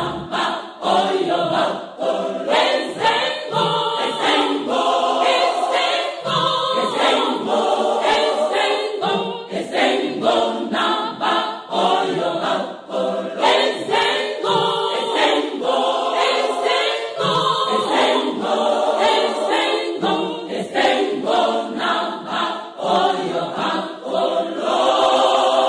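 A choir singing, ending on a long held chord near the end.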